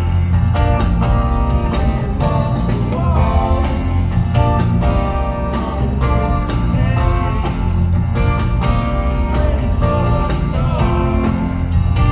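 Rock band playing live: electric guitar, bass and drums at full volume with a steady beat, and a few sliding notes from guitar or voice.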